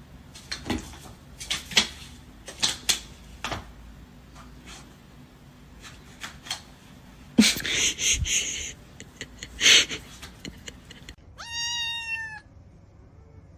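Scattered taps and knocks with a brief rustle, then a cat meows once, a call of about a second, near the end.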